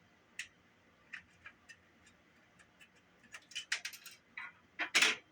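Sharp clicks and taps of a portable cassette player's plastic case and small parts being handled and pried apart: a few scattered clicks, then a quick cluster about three and a half seconds in, and the loudest knock near the end.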